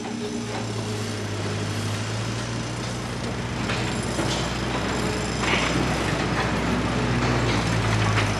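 Roadworks in a narrow street: an engine running steadily with a low hum, with scattered knocks and clatter as workmen handle wooden pallets.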